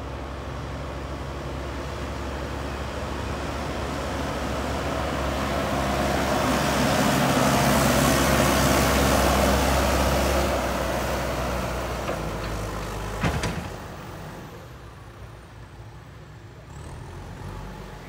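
JCB backhoe loader's diesel engine running as the machine drives past, growing louder to a peak about halfway through and then fading away. One sharp knock comes a little after the peak.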